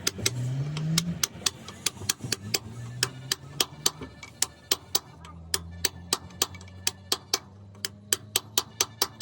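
A motor vehicle engine revving up in the first second, then running steadily, under a rapid train of sharp, evenly spaced knocks at about four a second.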